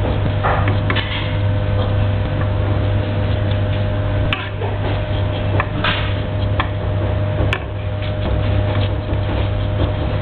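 Scales being scraped off a red mullet: short scratchy strokes and clicks against the fish. Underneath runs a steady low hum.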